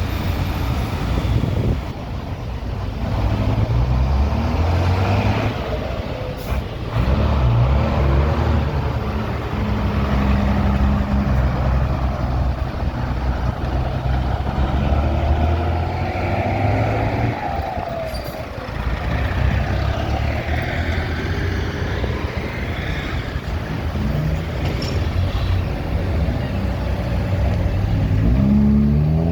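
Road traffic in a jam: truck and car engines running close by, with a short falling squeal about halfway through.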